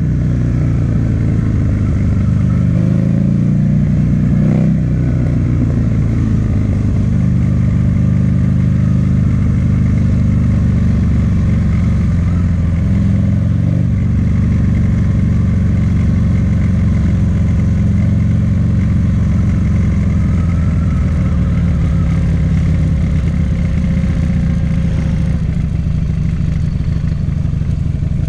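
2009 Buell XB12Ss's air-cooled V-twin running loud through an aftermarket Jardine exhaust while ridden. The engine pitch rises and falls over the first few seconds, then holds steady.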